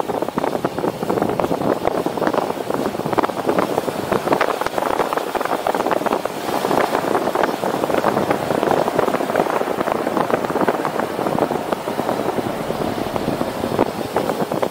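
A car driving steadily, its road noise mixed with wind buffeting a microphone mounted outside the car.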